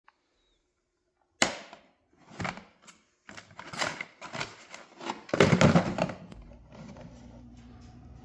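Nerf Elite 2.0 Volt blaster being handled: a sharp plastic click, then a string of irregular clicks and rattles, giving way about six seconds in to a steady low motor hum.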